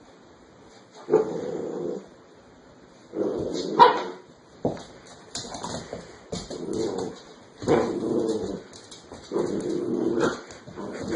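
A dog vocalizing over and over, giving about seven short barking and whining calls, roughly one a second.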